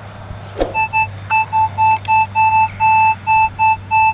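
Metal detector beeping over a buried target: a rapid run of short electronic beeps at one steady high pitch, about four a second, starting just under a second in after a short thump.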